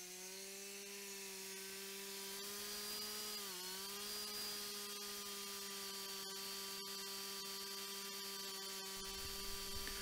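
Cook's 3238 band sawmill running steadily with a low hum, its head travelling along the track. The pitch dips briefly about three and a half seconds in, then holds.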